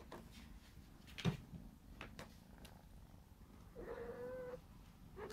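A Birman cat gives one short, steady meow about four seconds in. A soft knock sounds about a second in, with a few faint ticks after it.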